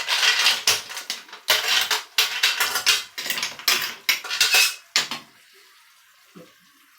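A utensil clattering and scraping against a pot as food is mixed together, in a quick run of strokes that stops about five seconds in.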